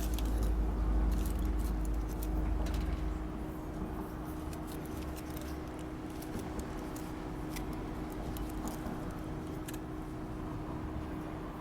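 Low rumble of passing traffic, strongest for the first three seconds, over a steady hum, with scattered light clicks and taps from handling food and utensils.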